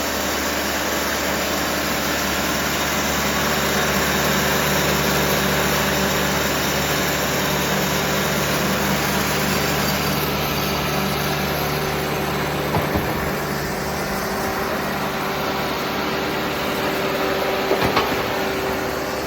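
A TimberKing 2520 sawmill's turbocharged Kubota diesel running steadily under power. A few brief knocks come about two-thirds of the way in and again near the end.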